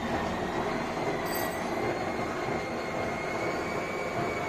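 Metal lathe running, turning a welded soil-auger screw, with a steady mechanical noise and a thin high whine that rises slightly in pitch in the first two seconds.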